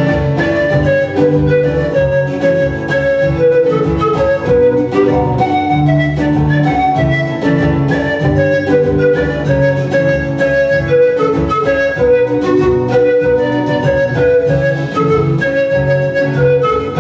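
Andean panpipes playing a melody over rhythmic acoustic guitar accompaniment, an instrumental passage with no singing.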